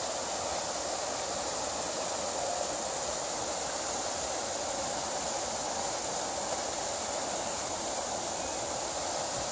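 Water pouring over a low canal weir into the basin below: a steady, even rushing.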